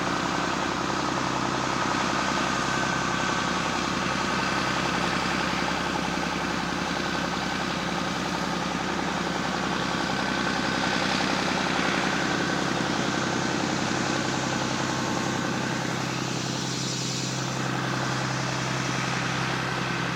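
Farm machinery's diesel engine running steadily at an even speed, a constant mechanical hum.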